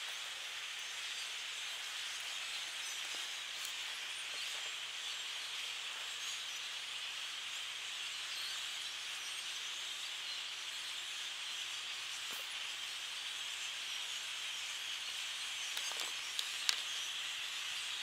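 A large flock of birds packed into the treetops, many calling at once in a steady, dense high chatter.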